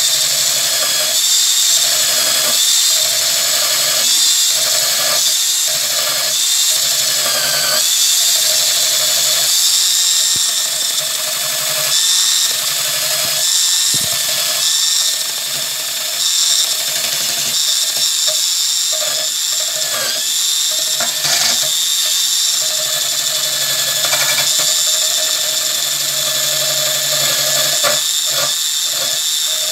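Power tool spinning a brass wire wheel against the rusted steel jaws of a side cutter, scrubbing off rust: a steady high-pitched whine whose pitch wavers slightly and whose lower hum dips briefly every second or so as the wheel is worked over the metal.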